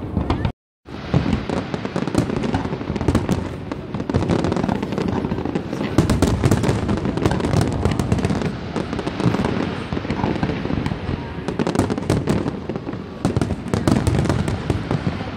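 Aerial fireworks shells bursting in quick succession: a dense, continuous run of bangs and crackles. The sound cuts out completely for a moment just under a second in.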